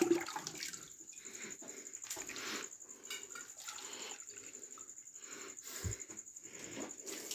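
Pigeons stirring in a wire-mesh cage, with a knock on the cage at the start and scattered light clicks and rustles. A steady high insect trill runs behind it.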